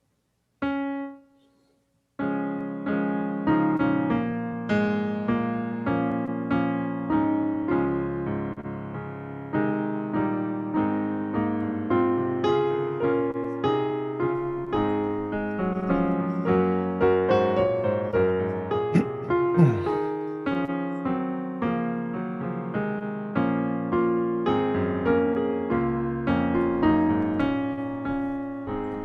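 Solo piano music. One struck chord sounds briefly and cuts off abruptly, then a flowing piece of repeated, decaying piano notes begins about two seconds in.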